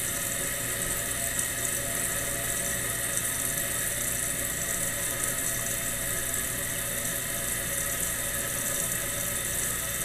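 Kohler toilet tank refilling after a flush: the fill valve and refill tube run water into the tank with a steady hiss and faint thin whistling tones.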